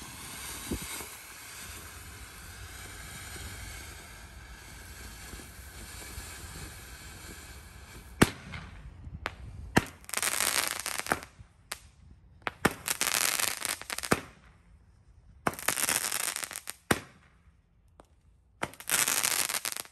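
Phantom Kaleidoscope 8-shot firework cake: a steady hissing fountain for about eight seconds, then sharp launch reports and four loud noisy bursts, each lasting about a second, as the aerial shots break.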